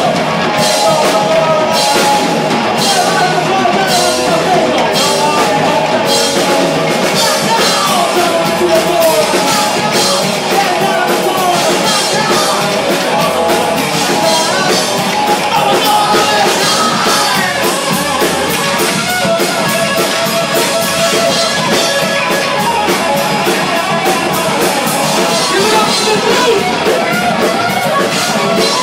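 Live rock band playing loud and steady: a vocalist singing into a microphone over electric guitar and a drum kit.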